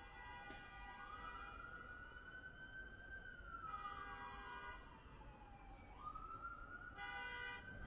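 Faint emergency-vehicle siren in a slow wail: the pitch climbs, holds, sinks over several seconds, then climbs again near the end. Short steady tones sound briefly alongside it, about halfway through and near the end.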